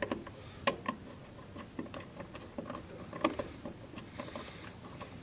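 Screwdriver turning down a screw terminal on a solar thermal controller's terminal block: faint, irregular small clicks and ticks, a couple louder than the rest.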